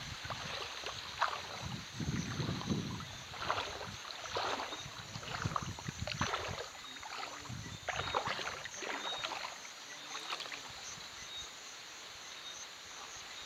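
Shallow river water splashing and sloshing in irregular bursts, roughly one a second, as someone wades through it. The splashes thin out near the end.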